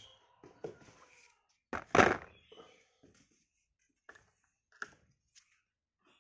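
Handling knocks on a metal bike shifter being set down on a cardboard box, with one loud thunk about two seconds in, followed by a few light clicks.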